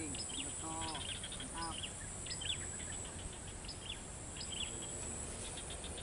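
Wild birds chirping: short, high chirps repeat irregularly throughout, with a couple of lower, pitched calls in the first two seconds, over a steady thin high tone and faint background noise.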